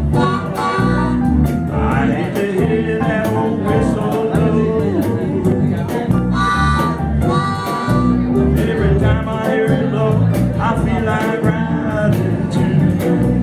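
Live band music in a blues style: a singer over guitar and a steady drum beat.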